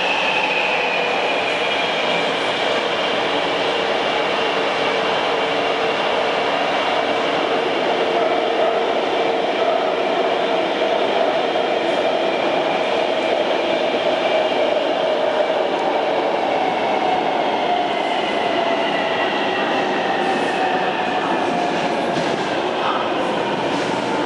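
Taipei Metro C321 train running: a steady loud rumble of the car, with its traction motor whine falling slowly in pitch.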